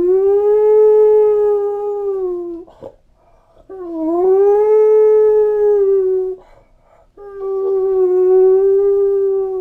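Beagle howling: three long, steady howls, each a couple of seconds long, with short breaks between them.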